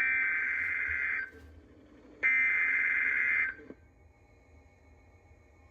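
NOAA Weather Radio SAME header: two harsh, buzzing digital data bursts, each about a second long and a second apart. They are the coded header that opens a severe thunderstorm warning broadcast.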